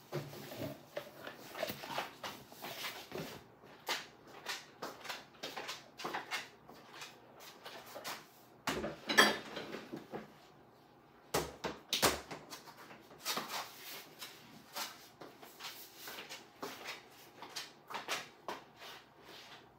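Irregular clicks, knocks and clatters of soap-making tools being handled and cleared away, the plastic mixing jug and stick blender among them, with two louder knocks about nine and twelve seconds in.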